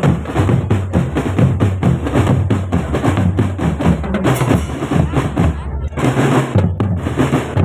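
Marching drum band playing a fast, dense rhythm on bass drums and snare drums, with a short dip just before six seconds in.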